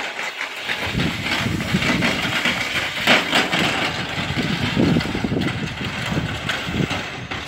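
Steel weight sled loaded with plates being pushed across concrete paving stones: a continuous grinding scrape with many small knocks, starting about a second in.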